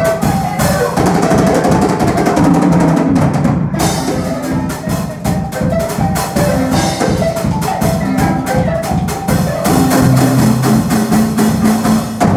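Zimbabwean-style marimba ensemble playing: several wooden-keyed marimbas struck with mallets in fast interlocking patterns over a drum kit beat.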